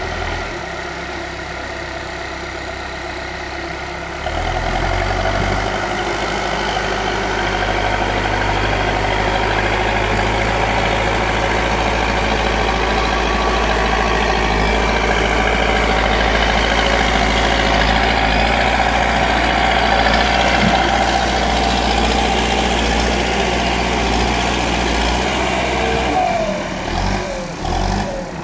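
Diesel engine of a JCB backhoe loader running steadily, getting louder about four seconds in and falling away near the end.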